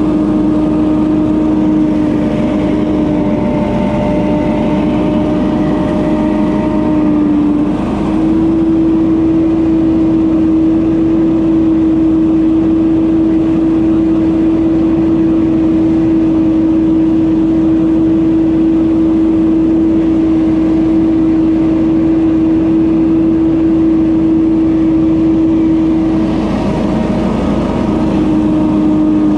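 Leaf blower running continuously at a steady pitch, with a brief dip in pitch about eight seconds in and again near the end.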